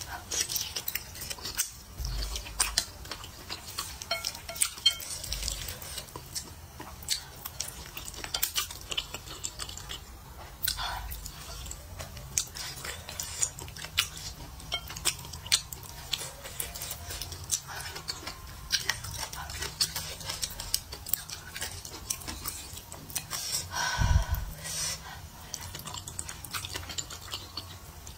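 Close-miked eating: chewing and slurping thick noodles, with wooden chopsticks clicking against the plate in many irregular sharp ticks. There is one briefly louder moment near the end.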